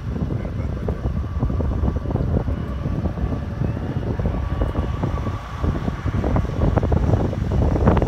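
Gusty wind buffeting the microphone in a low, uneven rumble, with highway traffic passing and a truck going by near the end.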